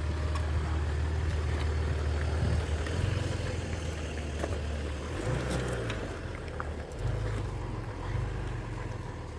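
Low rumble of a car driving, engine and road noise, steady at first and becoming more uneven about five seconds in.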